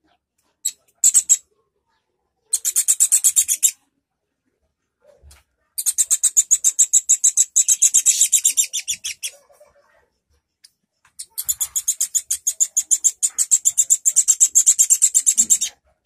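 Fledgling songbird begging for food as it is spoon-fed: rapid, evenly repeated high chirps, about ten a second, in three bursts of one to four seconds, after a few single chirps at the start.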